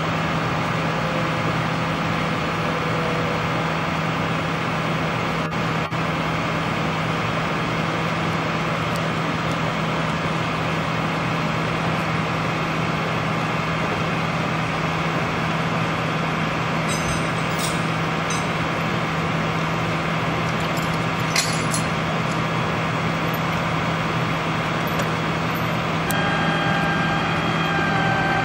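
Flatbed tow truck's engine idling steadily, a constant low hum under a steady noise bed, with a few short sharp clicks about two-thirds of the way through.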